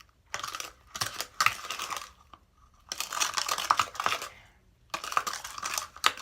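A mixing utensil stirring sugar into shampoo in a bowl: rapid gritty scraping and clicking against the bowl in four spells with short pauses, fairly loud.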